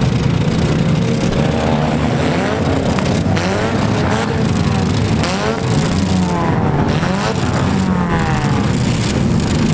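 Several small-car engines revving up and down at once, over a steady rumble, with a few knocks among them.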